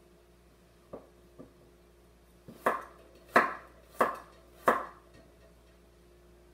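Cleaver slicing a carrot on a wooden cutting board: two light taps, then four firm chops about two-thirds of a second apart in the middle of the stretch.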